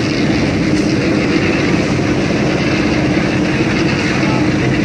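Portable drum concrete mixer running steadily: a constant mechanical engine noise with a low, even hum.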